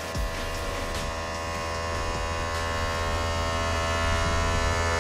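Volvo FH truck's electric cab-tilt pump motor running steadily as it raises the cab, getting gradually louder.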